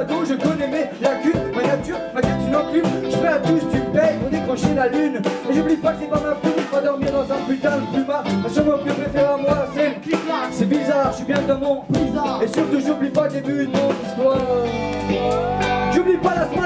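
Live band playing with electric guitars, accordion and drums, a steady beat, and singing over it. A held low note comes in a little before the end.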